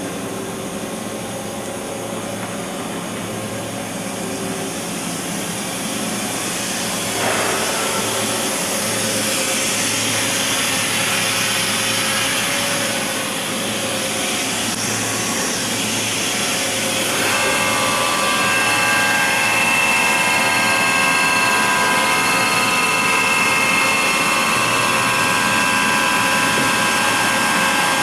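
Makino A71 CNC horizontal machining center running under power: a steady mechanical whir and hiss. A little past halfway, several steady high whining tones join in and the sound grows slightly louder.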